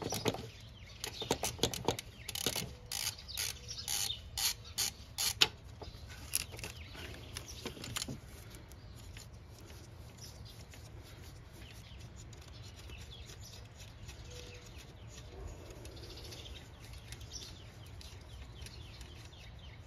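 Hand ratchet clicking in short runs as a 13 mm deep socket loosens a nut on a car alternator. The clicking stops about eight seconds in, leaving only a faint low hum.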